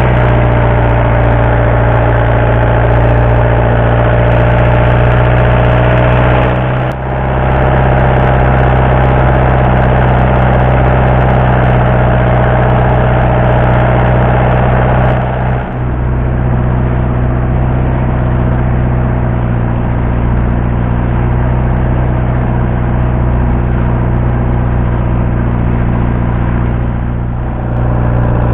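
Fishing boat's engine running steadily under way, a loud even drone with the wash of the wake beneath it, dipping briefly twice.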